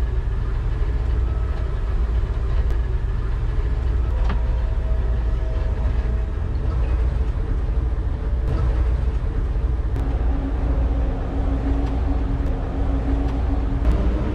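The twin inboard engines of a Sea Ray Sundancer 370 motor yacht running steadily underway, a deep, even rumble, with a few faint clicks.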